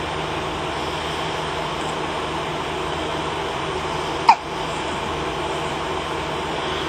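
A baby hiccups once, about four seconds in: a single short, sharp hic that drops quickly in pitch. A steady hiss lies underneath.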